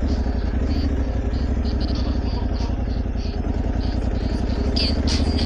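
Aprilia Tuareg 660's parallel-twin engine running steadily as the motorcycle rides on, with a broad rush of wind and road noise and short sharp ticks near the end.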